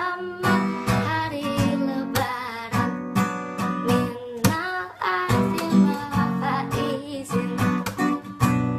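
Acoustic guitar strumming chords in a steady rhythm, each strum a sharp stroke over ringing chord tones.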